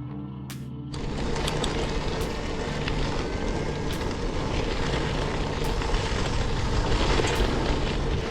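Background music with a loud, steady rushing noise that comes in suddenly about a second in and stays.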